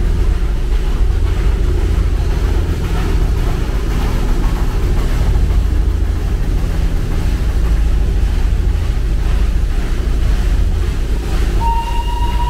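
Darjeeling Himalayan Railway toy train running, a steady low rumble. Near the end, a steady high tone starts and holds.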